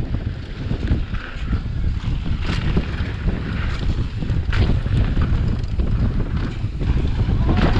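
Wind buffeting the microphone at riding speed over a mountain bike rolling down a dirt trail, with a few sharp knocks and rattles from the bike over bumps.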